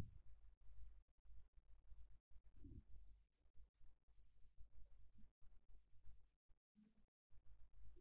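Near silence: quiet room tone with faint, short high clicks scattered through it, thickest around the middle.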